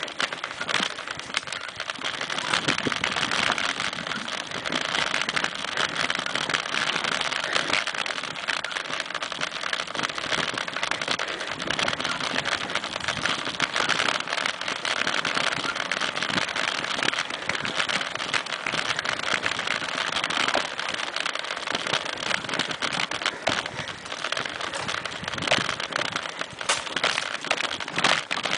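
Mountain bike rolling along a dirt singletrack: a steady crunch of tyres over dry leaves and grit, with frequent clicks and rattles from the bike over the bumps.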